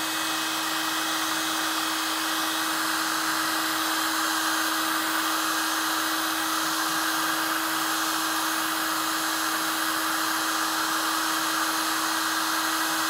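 Electric heat gun blowing steadily with a constant motor hum, held on freshly sprayed wrinkle-finish paint to make it crinkle and cure.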